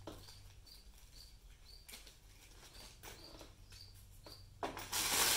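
Faint clicks of small rivets and washers being handled, then loud rustling of a plastic packaging bag near the end as the kit's parts are pulled from it.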